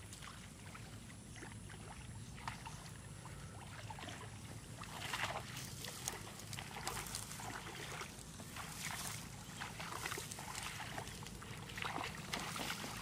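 Water splashing and dripping as a cast net is hauled in through shallow pond water by a man wading in it, in irregular bursts that grow busier about halfway through.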